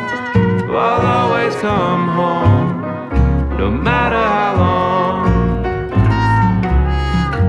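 Background music: an instrumental passage of a gentle country-style song, with guitar, strings and a steady bass beat.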